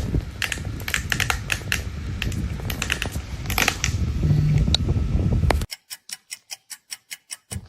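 Rapid, uneven clicking and tapping over a rumbling noise, then about two seconds from the end an even run of sharp clicks, about five a second, with silence between them.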